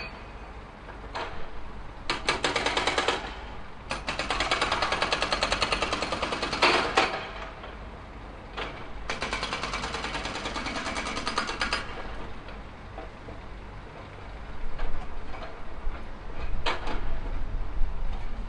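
Tractor-mounted hydraulic breaker (jackhammer attachment) hammering in bursts of rapid, even blows, each lasting a few seconds, with the machine's engine running low underneath. Irregular heavier knocks and clanks follow in the last few seconds.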